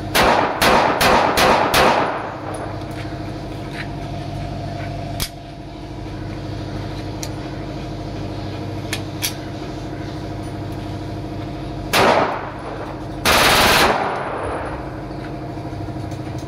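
A Pakistani-made Glock 18C-style 9mm pistol being test-fired: about six shots in quick succession over the first two seconds, then a single shot near the end followed by a rapid burst lasting about half a second. The pistol is newly finished, and this is its test firing.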